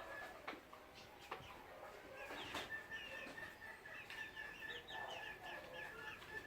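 Chickens calling faintly: a run of short, quick high calls, about three or four a second, through the second half, over a steady thin high tone, with a few sharp knocks in the first half.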